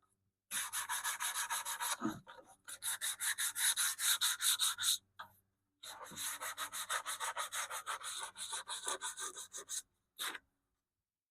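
180-grit sandpaper rubbed by hand over the stripped wooden cabinet of a Philco Model 70 radio, a final smoothing pass: quick back-and-forth strokes, several a second, in three runs with short pauses between, stopping about ten seconds in.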